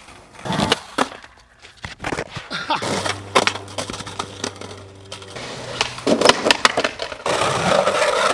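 Skateboard wheels rolling and decks clacking and slapping on concrete through a run of slams and landings, with sharp hits scattered throughout. A low steady hum sits in the middle, and a rough rolling rumble comes near the end.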